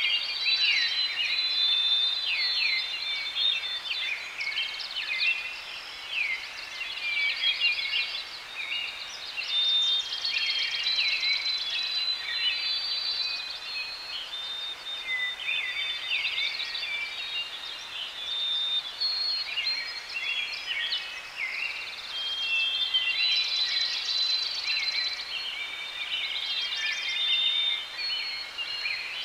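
Many birds singing at once, a dense chorus of overlapping chirps, whistles and trills.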